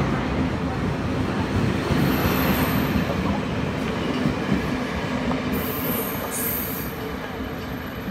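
Taiwan Railways Chu-Kuang express carriages rolling past as the train pulls out, with a thin high-pitched wheel squeal about two seconds in and again from about five and a half seconds. The sound fades near the end as the last car moves away.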